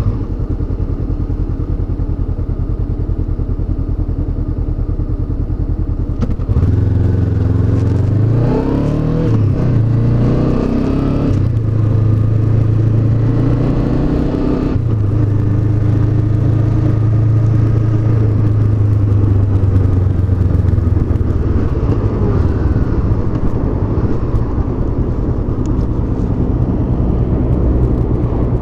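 Honda CB500X's 471 cc parallel-twin engine, heard from the moving bike. It runs steadily, then about six seconds in it accelerates, its pitch climbing and dropping back at two gear changes, before settling into a steady cruise.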